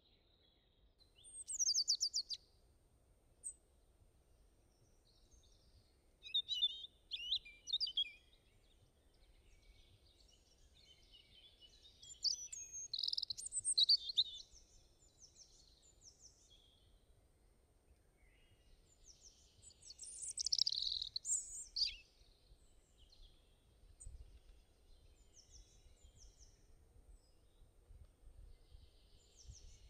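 Birds chirping in scattered bursts of quick high calls and short trills, loudest about two, seven, thirteen and twenty-one seconds in, over a faint low hum.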